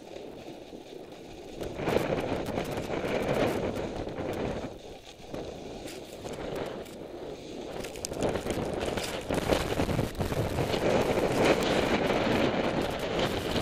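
Snow scraping and hissing under the camera wearer's edges while riding down a steep snow slope, in uneven surges. It is louder for a couple of seconds near the start, dips around the middle, and grows louder again through the last third.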